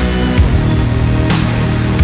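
Background electronic music with sustained low notes and occasional drum hits.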